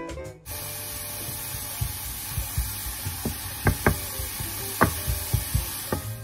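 Diced onion sizzling in olive oil in a frying pan, a steady hiss, while a wooden spoon stirs it and knocks against the pan several times in the second half.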